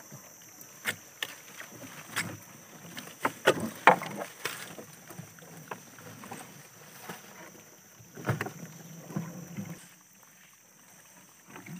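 Irregular knocks and clicks in a small boat's hold, where live giant freshwater prawns are kept and being handled. A handful of sharp knocks come loudest about four seconds in, with more around eight seconds, and it grows quieter near the end.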